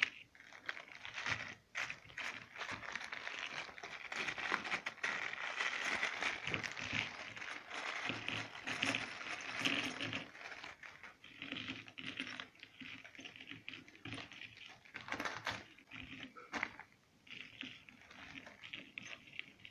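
A thin plastic bag crinkling and rustling as it is handled and small blue RJ45 connector boots are shaken out of it, with light clicks as the boots are sorted. There is a sharp click right at the start.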